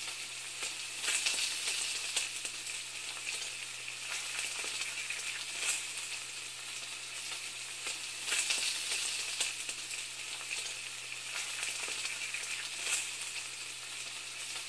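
Food frying in a hot pan: a steady sizzling hiss with irregular crackles and pops, over a faint low hum.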